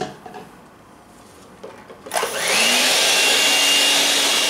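Electric hand mixer switched on about two seconds in, its motor winding up to speed and then running loud and steady as the beaters whip crepe batter in a metal bowl.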